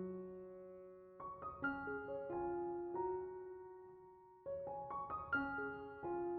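Background music: soft piano notes played in short phrases, each phrase ringing on and fading.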